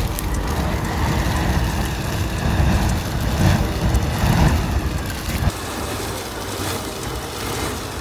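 A large sculpture of glued matchsticks burning fiercely: a steady rush of flame with dense crackling from the match heads, easing off about five and a half seconds in.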